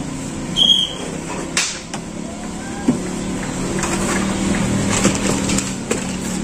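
Plastic wardrobe parts being handled and fitted together: scattered sharp knocks and clicks, with a brief high squeak early on. A low engine-like hum builds in the background from about halfway.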